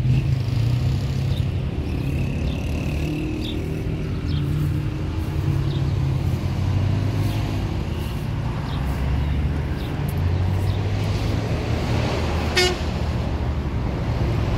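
Road vehicle engine running, its pitch rising and falling as it drives, with a short high horn toot early on and a brief sharp sound near the end.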